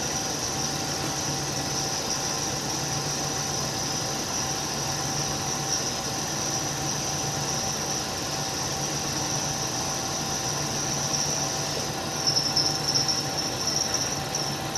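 Hardinge toolroom lathe running under power carriage feed, its tool taking a light finishing cut along the spinning part, with a steady high-pitched squeal over the low hum of the machine. About twelve seconds in, the squeal gets louder and uneven.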